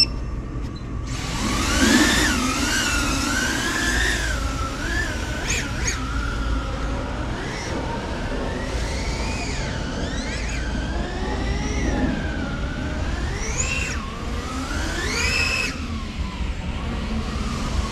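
A 5-inch FPV quadcopter's brushless motors spinning 3-inch five-blade propellers: a buzzing whine that starts about a second in and rises and falls in pitch with the throttle in flight. Near the end it climbs steeply to its highest pitch, near full throttle, then drops suddenly.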